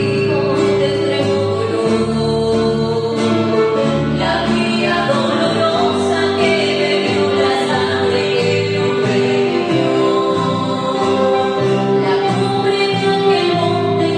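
A woman singing with acoustic guitar accompaniment, with the guitarist's voice joining in as a second singing voice.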